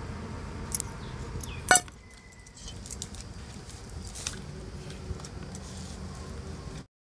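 Steel and aluminium cooking utensils clinking: a small steel bowl knocks once against an aluminium kadai as oil is poured from it, followed by scattered lighter metal clinks.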